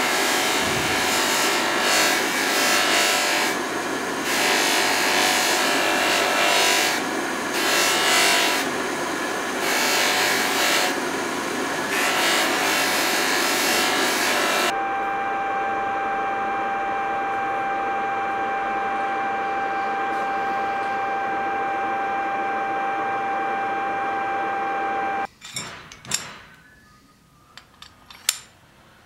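Bench grinder with a buffing wheel running while a small wooden handle piece is pressed against it by hand, a rough, uneven rubbing hiss that comes and goes as the piece is worked and lifted off. About halfway through the rubbing stops and the motor runs free with a steady whine, which cuts off abruptly near the end, leaving a few light clicks and knocks.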